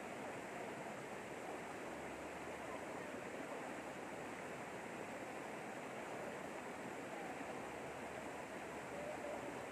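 Shallow river rushing over rocks through a small rapid: a steady, even rush of water.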